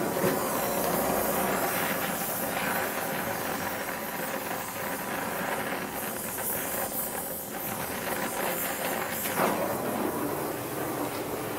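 A torch working on a steel knife pommel, giving a steady hissing rush. Two brief knocks come through, one just after the start and one late.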